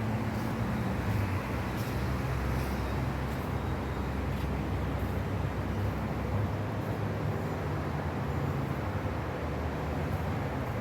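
Steady low rumble of vehicle noise, with a low hum that shifts slightly in pitch now and then.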